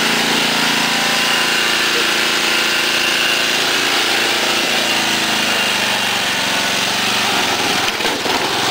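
John Deere Sabre lawn tractor's 11 hp Briggs engine running steadily, with a short jumble of knocks near the end.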